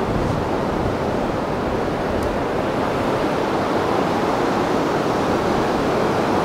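Flood-swollen New River rushing steadily over rapids, a constant churning water noise that can pass for a distant train.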